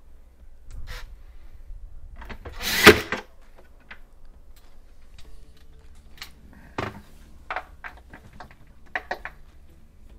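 Plastic clicks and knocks as a refrigerator fan housing and its screws are handled and fastened, with one louder rattle about three seconds in and a run of short clicks later on.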